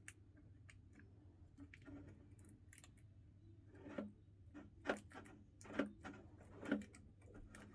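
Faint handling of a plastic smoke alarm being twisted on its locked mounting base: light clicks and scrapes, then from about four seconds in a short sound roughly once a second, over a steady low hum.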